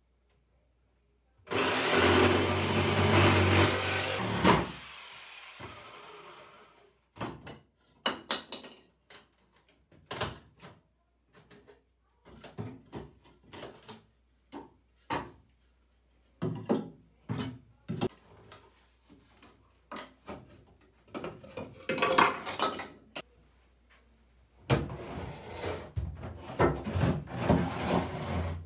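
A small power tool runs for about three seconds and winds down. Then come scattered knocks and clicks of parts and tools being handled at a wooden vanity cabinet, with a stretch of rubbing and scraping near the end.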